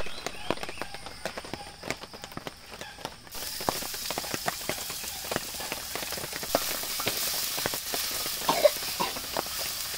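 Chopped onion tipped into hot oil in a wok, starting to sizzle about three seconds in: a sudden steady hiss that keeps on while a wooden spatula scrapes and taps against the pan. Before that, a few light knocks and clatters of the wok and utensils.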